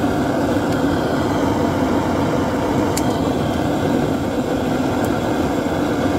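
Handheld gas torch burning with a steady roar as its flame is blasted into firewood to light a fire. A few faint sharp crackles come from the wood, the clearest about three seconds in.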